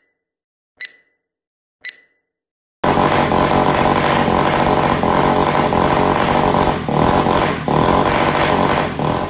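Countdown beeps about a second apart, then the supercharged engine of a 1/4-scale RC car cuts in very loud, running at high revs with the rear tyres spinning in a smoky burnout. It dips briefly twice near the end.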